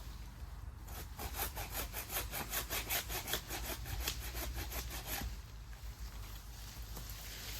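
Hand saw cutting through a cherry tree trunk in quick back-and-forth strokes, about four to five a second, which stop about five seconds in.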